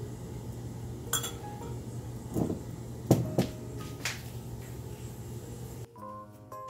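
A few clinks and knocks as a measuring cup is tapped against a stainless steel mixing bowl and set down in a glass measuring jug, the two loudest close together about three seconds in, over a steady low hum. Background music comes in near the end.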